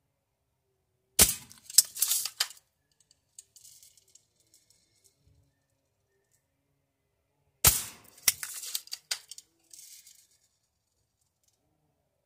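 Two walnuts shattering under BB hits, about six and a half seconds apart: each a sharp crack followed by a quick run of clicks and rattles as shell pieces fly, then faint ticking as bits settle.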